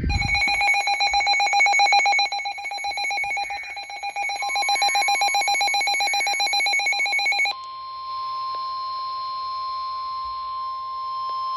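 A weather radio's alert alarm: a loud, rapidly pulsing electronic warble with several tones, lasting about seven and a half seconds. About four seconds in, a steady single-pitch tone joins it and carries on alone after the warble stops: the NOAA Weather Radio warning alarm tone that heralds a new warning broadcast.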